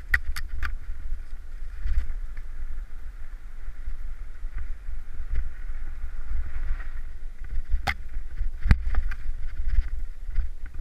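Mountain bike rattling and clattering over a rocky trail at speed, with a steady wind rumble on the helmet camera's microphone; sharp knocks from the wheels hitting rocks, the loudest about 8 and 9 seconds in.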